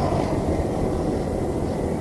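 A landing airliner's engine rumble fading away just after passing low overhead on approach, leaving a steady low drone.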